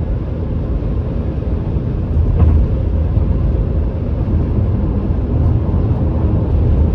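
Car driving at speed, heard from inside the cabin: a steady low rumble of tyres and engine on the road, with a slight bump about two and a half seconds in.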